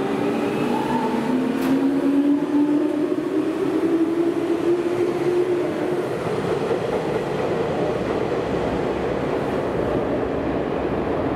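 Electric commuter train accelerating away, its inverter motors whining in a tone that rises steadily in pitch over the first five or six seconds. After that there is a steady running and rail noise.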